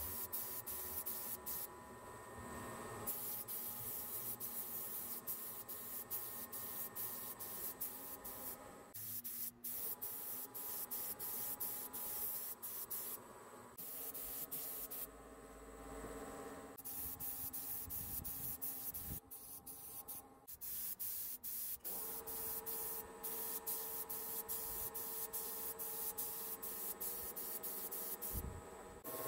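Compressed-air gravity-feed paint spray gun hissing as it sprays paint. The hiss stops and starts again several times as the trigger is released and pulled.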